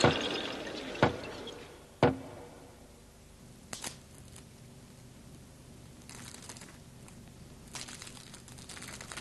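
Three sharp knocks about a second apart, each dying away quickly, then a couple of faint clicks and soft rustling.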